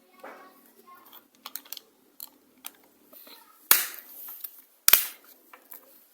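Small plastic clicks and taps from a keypad phone being handled and its housing pressed together, with two sharp snaps about four and five seconds in.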